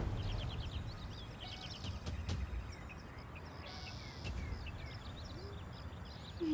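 Small birds chirping again and again over a steady low rumble of outdoor background noise.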